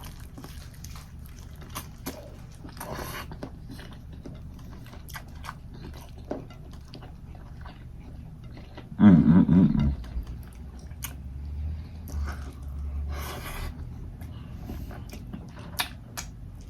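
Close-miked chewing and wet mouth smacking, a string of small irregular clicks and squelches. About nine seconds in comes a brief loud hum of the eater's voice, the loudest sound here.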